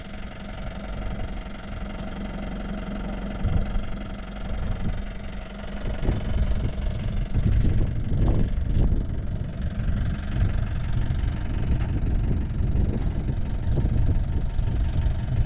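Safari jeep's engine running while the jeep is stuck in soft sand and digging itself in, growing louder about six seconds in.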